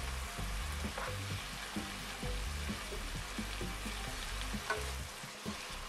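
Spinach, mushrooms and onions sizzling in a nonstick frying pan, with a wooden spoon stirring briefly near the start and a few light ticks.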